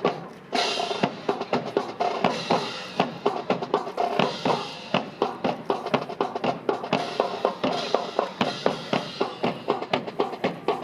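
Drum-led band music, with snare and bass drums playing a fast, steady rhythm over sustained instrumental tones; it drops out briefly at the start and comes back in about half a second later.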